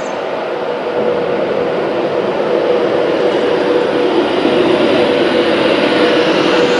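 Avanti West Coast Class 390 Pendolino electric train approaching and running along the platform, a steady rush of wheels and running gear with a steady hum, growing louder as it draws near.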